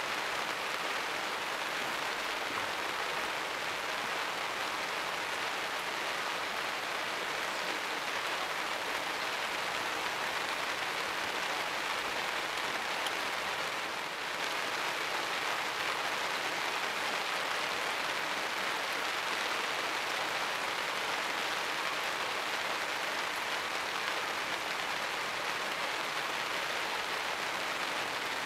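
Steady rain falling, an even hiss that holds throughout.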